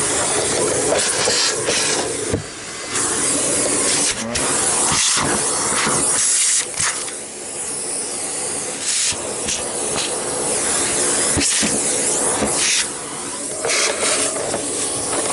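Vacuum cleaner suction through a hose nozzle, a steady rushing hiss as dust is sucked out of a canister vacuum's plastic housing. It dips and changes in tone several times as the nozzle is moved and pressed against the plastic.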